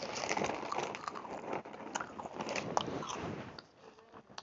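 Crunchy biting and chewing of Cheez-It crackers: a dense run of sharp crackling crunches that thins out to a few scattered clicks for the last second or so.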